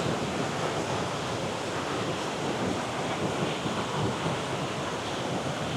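Creek rushing in high water after rainfall, a steady roar of flowing water.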